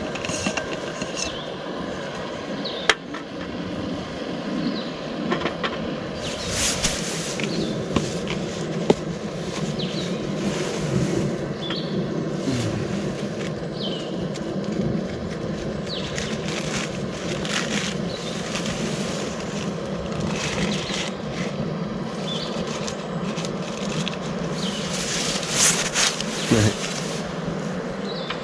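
Portable camp stove burner running steadily on a low flame, a constant hiss, with a couple of sharp clicks and short high chirps now and then.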